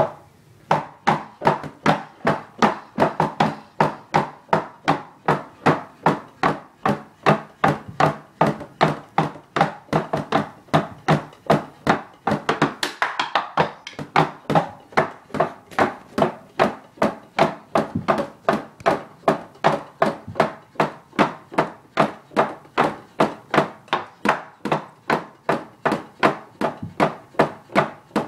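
Wooden drumsticks striking the rubber pads and cymbal pads of an electronic drum kit, whose drum sounds go to headphones, so only the sticks' taps on the pads are heard. The hits come in a steady rhythm, about two to three a second.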